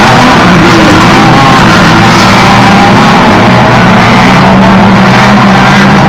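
Loud music playing.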